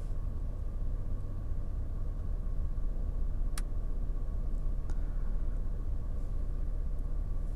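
Steady low rumble and hum inside a car cabin, with one sharp click about three and a half seconds in.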